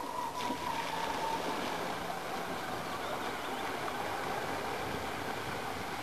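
Water churning and sloshing as a heavy radio-controlled four-wheel-drive robot, powered by two 550 W wheelchair motors, drives through a shallow pond, with a faint whine that fades out after about a second and a half.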